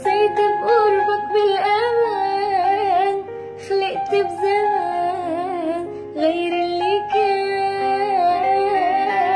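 A female voice singing an Arabic song in long, wavering, ornamented lines with vibrato over backing music with held notes, pausing briefly twice.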